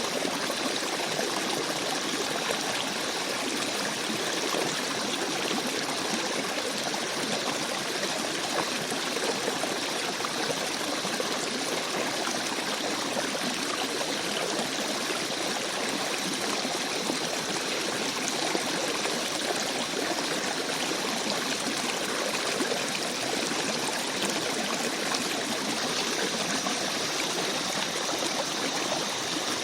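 Small stream babbling over stones, a steady rush of moving water.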